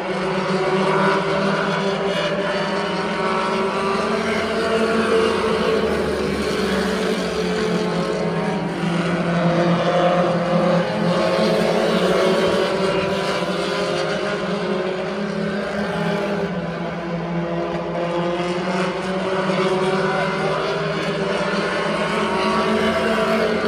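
Several pure stock race cars running laps together, their engines droning with pitch rising and falling as the pack goes by.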